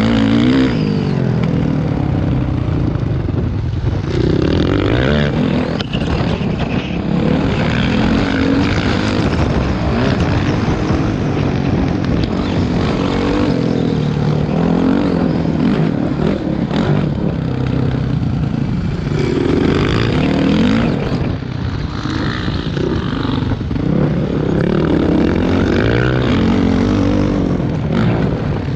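Motocross dirt bike engine running hard under the rider, its note rising and falling again and again as the bike accelerates, shifts and backs off through the track.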